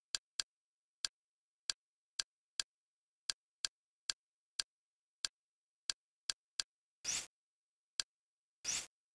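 Kodi media-centre menu sound effects: a string of short, sharp ticks, about two a second, as the cursor steps through a list of videos, with two longer, louder clicks about seven and nearly nine seconds in as a folder is opened or left.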